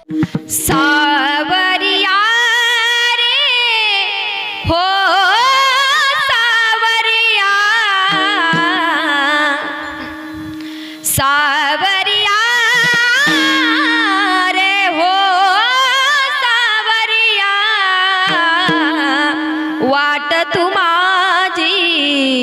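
A woman singing a long, ornamented Varkari kirtan melody, her voice sliding and wavering between notes over a steady held accompanying note. Her phrases break off briefly about four and a half and about eleven seconds in.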